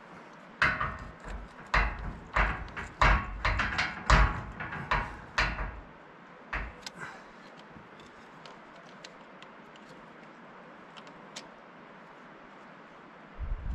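Irregular metal clanks, knocks and scraping from hand-tool work on a John Deere 650J dozer's hydraulic lift cylinder while it is being repacked, busy for the first half, then a few faint clicks and one more clatter at the very end.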